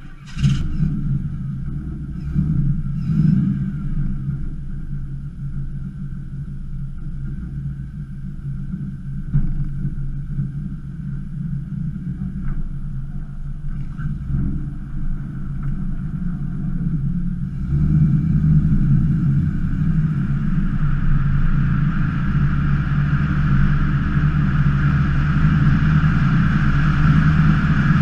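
A 1968 Pontiac LeMans engine comes to life with a short sharp burst and then idles with a steady low rumble and a few light revs. About two thirds of the way in the car pulls away, and the engine note and road and wind noise rise steadily as it accelerates.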